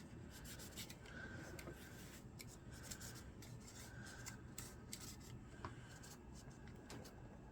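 Faint rubbing and scratching with many small irregular clicks: pistol parts being scrubbed and wiped clean.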